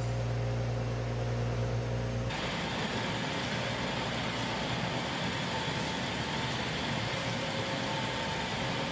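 Concrete pipe plant machinery running: a deep steady hum for about two seconds, then an abrupt change to a steady, even factory din with faint whining tones.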